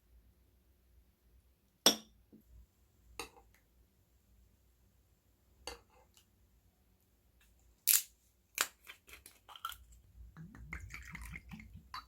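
Kitchen handling sounds: a few separate sharp clinks and knocks of dishes and utensils, then a quicker run of clicks and a busier clatter with some rustling near the end.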